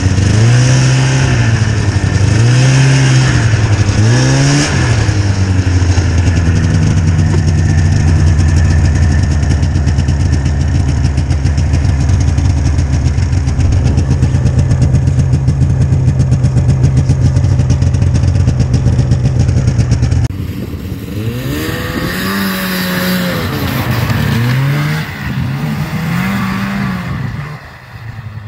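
Yamaha V Max 500 XT snowmobile's twin-cylinder two-stroke engine revving up and down in a few throttle blips, then held at a steady high pitch for about fourteen seconds. About twenty seconds in the sound drops suddenly to the same sled heard farther off, revving up and down repeatedly.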